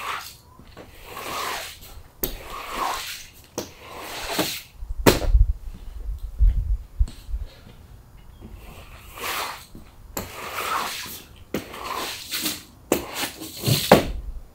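Floor squeegee pushing water across a wet concrete floor: repeated swishing strokes about every second and a half, with a few sharp knocks of the squeegee on the floor and a low rumble partway through.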